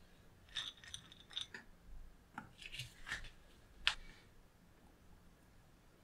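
Caramel cubes being set down by hand on melted chocolate in a stainless steel ring mold: an irregular run of light clicks and taps, the sharpest a little before four seconds in.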